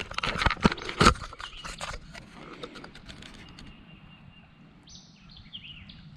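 A quick run of sharp knocks and clatter for about the first two seconds. It then gives way to a quiet outdoor background with a few short bird chirps near the end.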